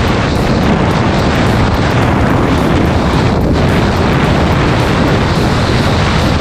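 Alfa Romeo GTV's 3.0-litre 24-valve Busso V6 engine and exhaust running steadily at cruising speed, mixed with a broad rush of wind noise.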